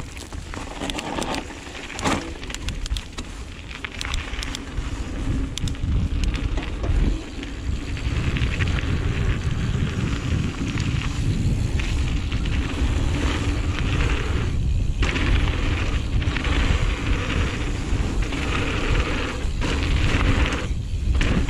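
Wind buffeting a GoPro's microphone as a Giant Reign full-suspension mountain bike descends a dirt flow trail, with tyre rumble and clicks and rattles from the bike. The rush grows louder about a third of the way in as speed picks up, and briefly drops out twice near the end.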